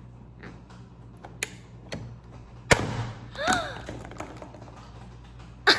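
Plastic clicks from pressing the nose of a Porcupine Pop toy hedgehog, then a sharp loud snap about a third of the way in as the spring-loaded toy pops and throws out its darts. A short vocal cry follows, and there is another knock near the end.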